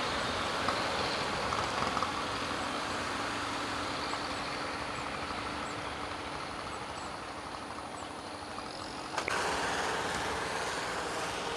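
Steady low running noise of an idling vehicle engine with a faint steady hum, which breaks off with a sharp click about nine seconds in, after which the background noise changes.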